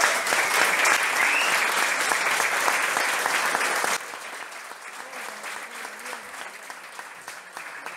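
A crowd applauding, a dense patter of many hands clapping. About halfway through it drops suddenly to a much quieter level and carries on.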